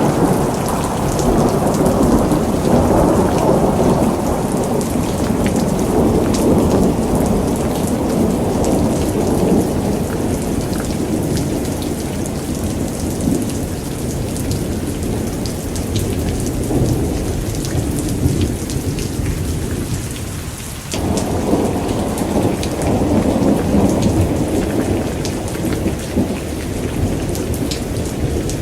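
Thunderstorm: steady rain pattering over a long low rumble of rolling thunder. The rumble dies down after about 20 seconds, then a new roll of thunder comes in suddenly about 21 seconds in.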